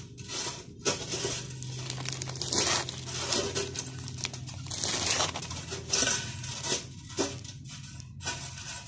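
Clear plastic bag crinkling and rustling as it is handled and filled with boiled paddy rice, with a faint steady low hum underneath.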